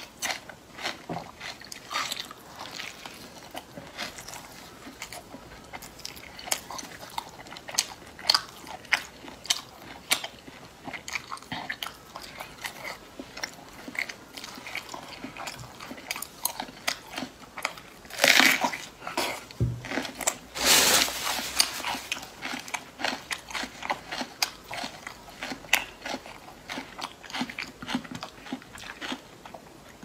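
Close-miked eating of spiced, browned pork belly: bites and crunching chews in an irregular run of clicks, busiest and loudest around two-thirds of the way through.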